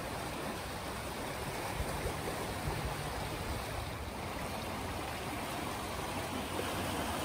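Muddy river in flood rushing and swirling in turbulent eddies, a steady rushing-water noise.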